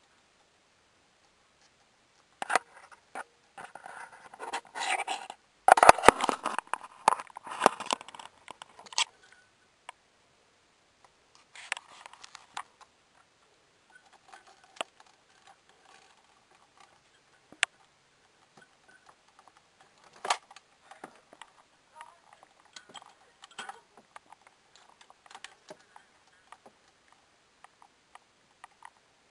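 Handling noise close to the microphone: irregular clicks, taps and rustling as things are moved about. It is busiest and loudest from a couple of seconds in until about nine seconds, then thins to scattered light clicks with a couple of single sharp ticks.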